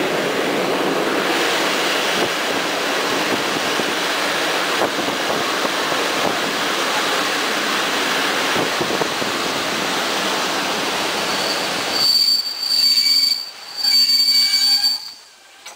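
Steady noise of a train running on the rails, then about twelve seconds in a loud, high-pitched steel-on-steel wheel squeal, twice, each about a second long.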